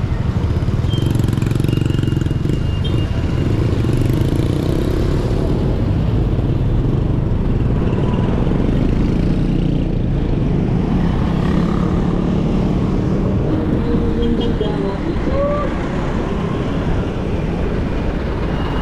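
Steady road traffic noise, motor vehicles running along the road, with a constant low rumble and no sharp events.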